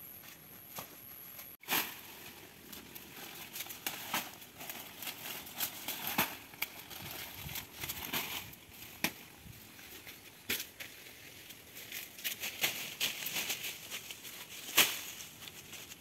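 Dry leaves and plant stalks rustling and crackling as people push and step through undergrowth, with irregular sharp snaps, the loudest near the end.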